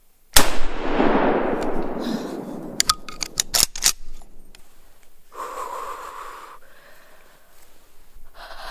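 A single gunshot fired at a whitetail buck, its report echoing and dying away over about two seconds. A few sharp clicks follow about three seconds in.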